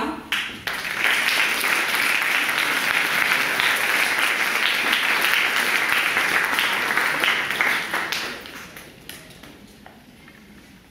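Audience applauding a named award winner: the clapping starts about a second in, holds steady, and dies away after about eight seconds.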